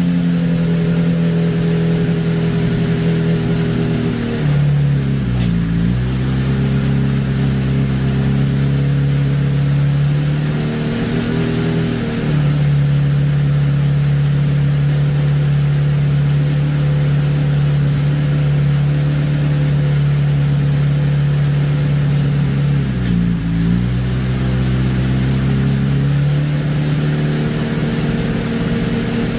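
Honda CBR600RR's inline-four engine with a Yoshimura slip-on exhaust running on a rear stand at steady raised revs. The revs dip and recover three times as the clutch is pulled and the bike is shifted up through the gears.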